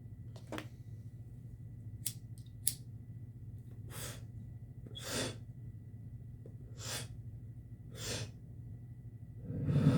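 A person breathing in and out close to the microphone, several short breaths a second or so apart, over a steady low hum. A few sharp clicks come about two seconds in.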